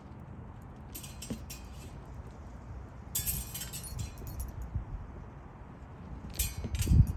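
Steel rapier blades clinking and scraping against each other in sparring, in three short flurries: about a second in, about three seconds in, and the loudest near the end, over a steady low rumble.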